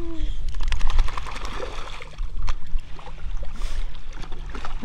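Lake water splashing and sloshing around a boxer dog wading in the shallows and snapping at the water, with a run of quick splashy ticks about one to three seconds in, over a steady low rumble.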